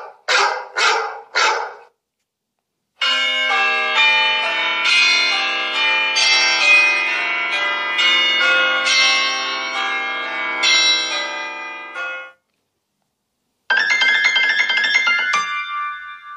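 iPhone ringtones played back to back: the last of four quick tone pulses, then a melodic ringtone of bell- and piano-like notes lasting about nine seconds, and after a short gap a brief chime that ends on a single held tone fading out.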